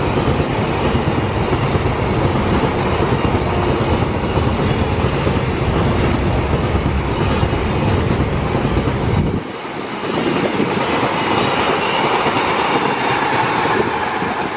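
Double-stack container freight train rolling past close by, a loud, steady noise of wagon wheels running on the rails. About nine seconds in, the deep rumble drops away suddenly and a lighter, higher rail noise carries on as the last wagons and brake van go by.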